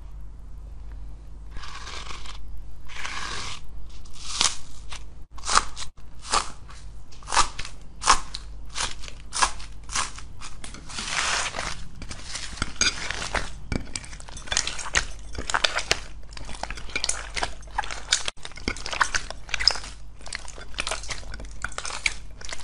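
Slime mixed with purple foam beads being squeezed and kneaded by hand, crunching and crackling with each press. The sharp crackles come about twice a second at first, then run into a denser crackle.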